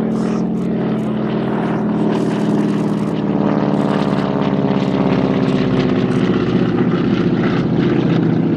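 Nine-cylinder Pratt & Whitney R-1340 Wasp radial engine of a North American T-6 Texan (Harvard) trainer flying past, a steady propeller drone whose pitch drops as the aircraft goes by, starting about three seconds in and growing louder.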